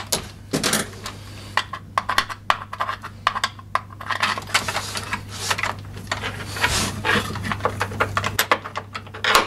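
Small bolts and a hard plastic battery-case lid on a lawn mower being handled as the bolts are fitted by hand: irregular light clicks, taps and scrapes.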